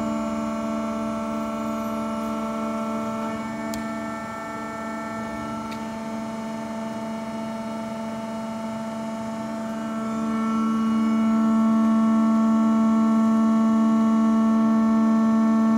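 Akyapak AHS 20/25 plate bending roll machine running: a steady machine hum of several sustained tones, which grows louder about ten seconds in and then holds.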